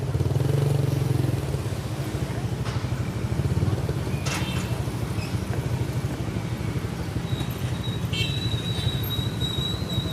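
Motorcycle engine running steadily at road speed, with road and wind noise.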